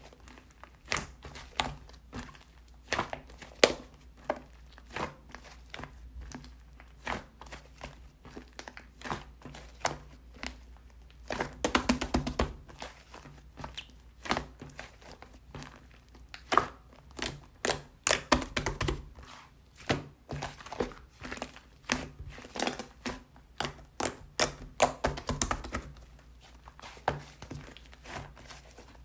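Soft, fluffy slime being squished and poked by hand, giving irregular sticky pops and crackles. The pops come thickest about twelve seconds in and again a little past the twenty-second mark.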